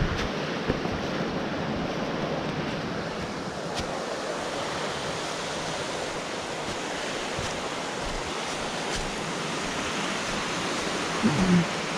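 River water rushing steadily over rocks, a constant full-range rush. A short pitched sound comes in just before the end.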